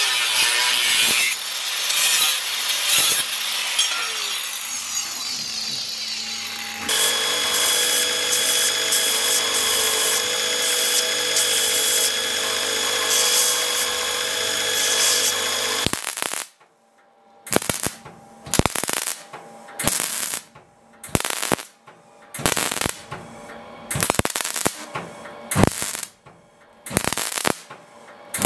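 Angle grinder's abrasive disc cutting through a piece of steel, throwing sparks. About seven seconds in, a belt grinder takes over and runs steadily with a constant whine. From about sixteen seconds in, a MIG welder lays a series of short crackling bursts, a little over a second apart.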